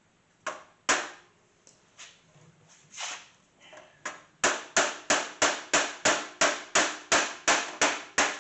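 Hammer blows on the rivets of a Dell XPS 420's sheet-steel desktop case, knocking them out to free the hard drive bay. A few separate strikes first, then a rapid even run of about a dozen blows, roughly three a second.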